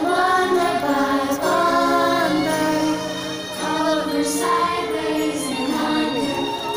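Theme-park nighttime show soundtrack: music with a choir singing sustained, changing chords.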